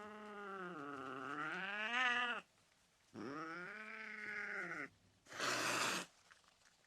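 Angry domestic cat yowling: two long, wavering, drawn-out calls, followed by a short hiss lasting under a second.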